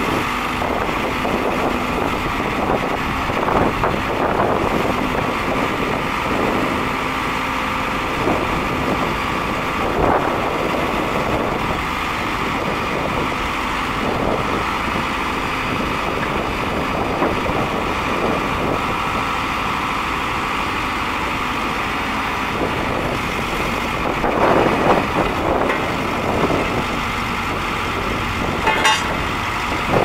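Case 580L backhoe loader's diesel engine running while the hydraulic backhoe boom and bucket are worked, its sound rising and falling in patches, most strongly about 25 seconds in.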